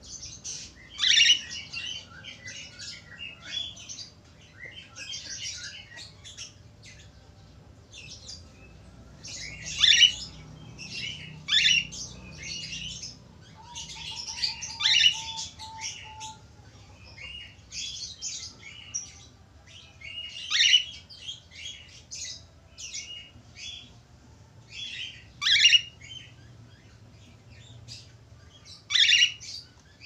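Cockatiel chattering with warbling chirps and whistles, broken every few seconds by a loud, sharp call that swoops downward.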